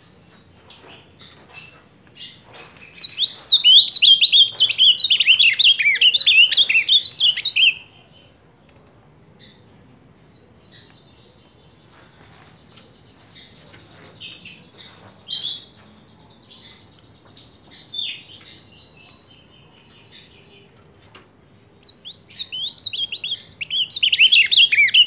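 Caged male ultramarine grosbeak (azulão) singing. A fast, warbling phrase of high notes starts about three seconds in and lasts some five seconds, a few scattered single notes follow in the middle, and another warbling phrase begins near the end.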